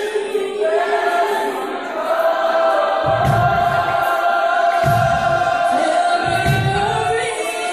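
Amplified song with voices holding long, steady notes. Deep bass pulses come in about three seconds in, roughly once every second and a half.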